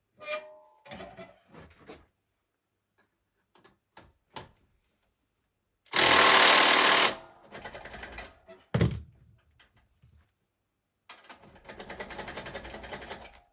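Tools at work on a riding mower's engine: scattered clicks and knocks, a loud burst about a second long about six seconds in, a sharp knock, then a fast rattling run of about two seconds near the end.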